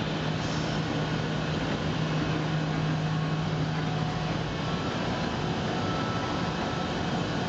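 Steady machine-like rushing noise with a low hum that fades out about four and a half seconds in.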